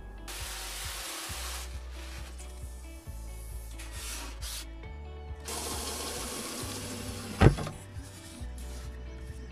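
Background music with several stretches of scratchy rubbing noise from hands working masking tape over a foam wing core and balsa sheet, and one dull thud about seven and a half seconds in.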